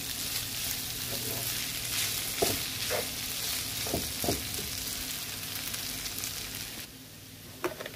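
Fried rice with vegetables sizzling in a pan over a freshly raised flame, while a wooden spatula stirs and scrapes through it with a few short knocks. The sizzle falls away about seven seconds in.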